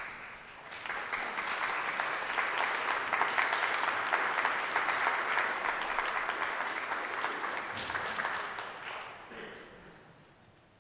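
A church congregation applauding: the clapping builds up within about a second, holds steady, then fades away near the end.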